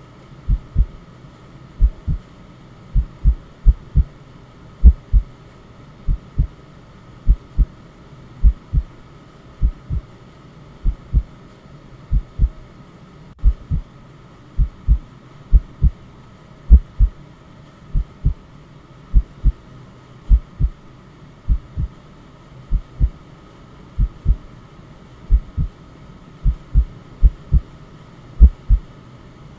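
Heartbeat sound for soothing an infant: paired low lub-dub thumps repeating steadily about every 1.2 seconds, over a continuous bed of white noise.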